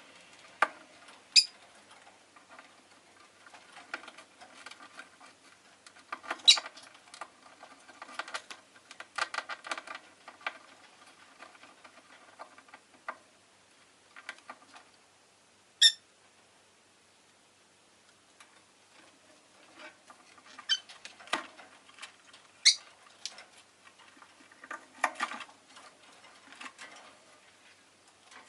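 Rosy-faced lovebird giving short, sharp, high chirps every few seconds, mixed with patches of quick soft clicking.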